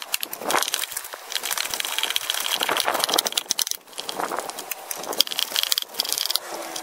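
Hand ratchet clicking in quick runs as it backs out the 10 mm bolts holding down the bottom of a plastic air filter box, with a brief break a little under four seconds in.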